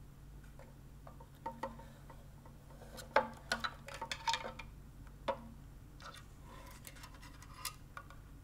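Scattered plastic clicks, knocks and light scrapes as a two-cell lithium-ion battery pack is pushed out of a massage gun's plastic handle tube and slides out onto the table. The loudest cluster of knocks comes about three seconds in, with a few softer clicks near the end.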